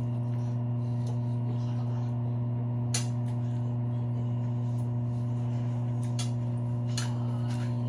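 Steady low electrical hum, unchanged throughout, with a few faint sharp clicks, about three seconds in and again near the end.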